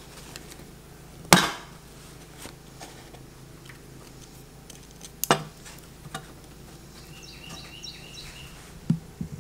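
Steel machine screws being sheared in the bolt-cutting holes of a pair of wire strippers: a sharp metallic snap a little over a second in and another about five seconds in, with lighter clicks of the pliers and screws being handled. A quick run of high chirps comes near the end.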